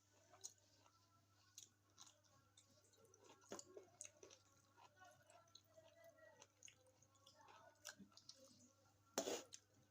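Close-miked chewing of food: soft, wet mouth clicks and smacks scattered throughout, with one louder burst a little after nine seconds in.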